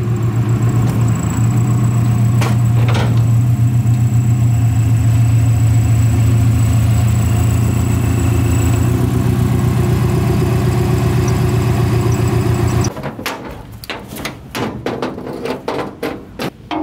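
Subaru Impreza's flat-four engine running at low speed as the car creeps up onto a car trailer, then shut off about 13 seconds in. A run of separate clicks and knocks follows.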